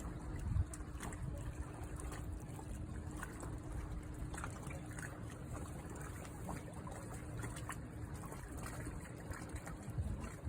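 Water trickling and lapping with small scattered splashes, over a faint steady hum.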